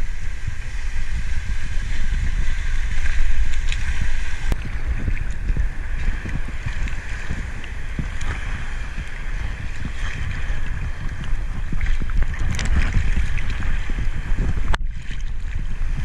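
Sea swell sloshing and waves breaking against rocks, with a steady low rumble of water and wind on the microphone at the waterline. A single sharp click sounds a little before the end.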